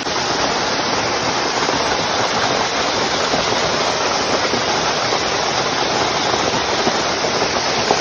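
Waterfall pouring down a rock face and splashing onto the rocks below: a loud, steady rush of falling water.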